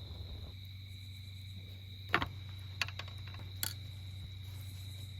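Steady chirring of crickets over a low hum, with three sharp pops from the campfire, the loudest about two seconds in.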